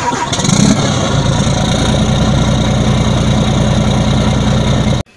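Truck engine running steadily, swelling briefly in the first second, then cut off suddenly near the end.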